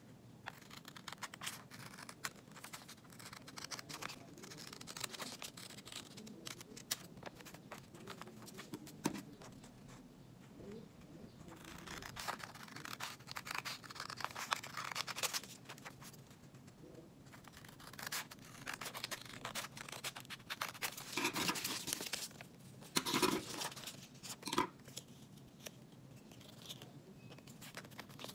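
Small scissors snipping through brown paper, a series of short cuts along with the rustle and crackle of the paper being handled and folded. The loudest snips and crackles come in a cluster a little past the middle.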